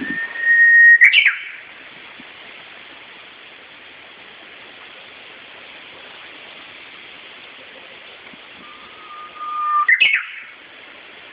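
Japanese bush warbler (uguisu) singing its hoo-hokekyo song twice, about nine seconds apart: each song is a long held whistle that breaks into a quick flourish, the second whistle pitched lower than the first. A steady hiss runs underneath.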